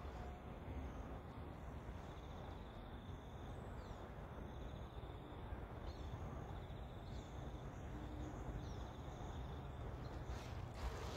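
Quiet outdoor ambience: a steady high insect trill with a few faint bird chirps over a low background rumble, and a couple of brief noisy sounds near the end.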